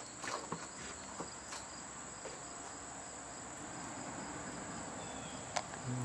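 Insects chirring steadily in a continuous high-pitched buzz, with a few faint ticks and one sharper click about five and a half seconds in.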